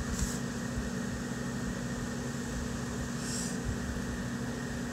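Steady low mechanical hum with a constant hiss, like a room fan or air conditioner running, with a brief faint rustle about three seconds in.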